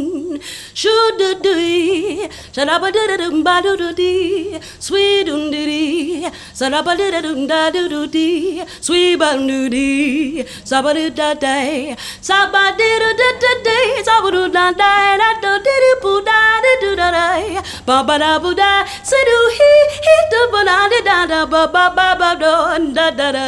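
A woman singing solo and unaccompanied, in wordless runs that sweep up and down in pitch with vibrato, with short breaks for breath between phrases.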